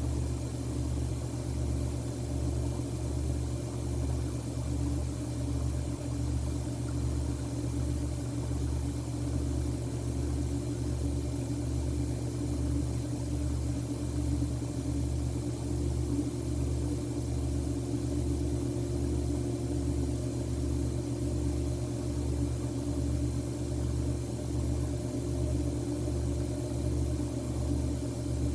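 A steady low mechanical hum with an even throb a little over once a second, over faint hiss.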